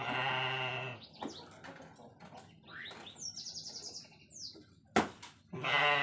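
An animal bleating twice: a long, wavering bleat at the start and another near the end. Between them come high, quick chirps, and there is a single sharp click about five seconds in.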